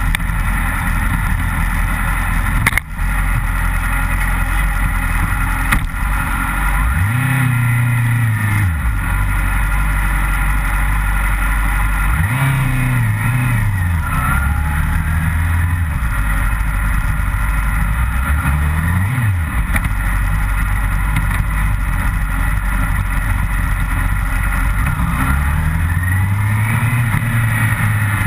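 Yamaha R6 sport bike's inline-four engine running at a low idle, rising in pitch and falling back about four times as it is revved or pulls away at low speed.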